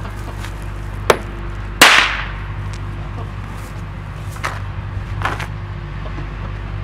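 A hammer strikes a drop of MEKP (methyl ethyl ketone peroxide) on concrete and sets it off. A sharp tap about a second in is followed by a much louder, sharp crack that dies away quickly. Two fainter knocks come a few seconds later.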